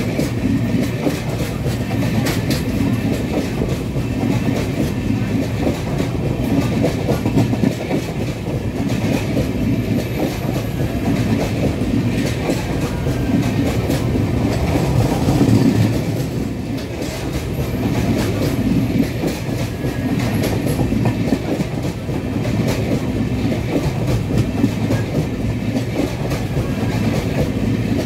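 A passenger train's coaches rushing past at close range on the adjacent track: a loud, steady rumble with a rapid clickety-clack of wheels over rail joints, heard from the doorway of a train on the next line.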